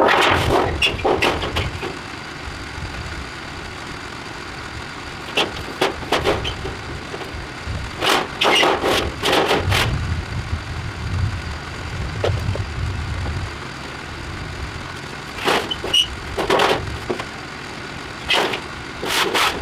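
Recycled trapezoid-profile metal roofing panels being handled and laid on a porch roof: several bursts of clattering, rattling and knocks a few seconds apart.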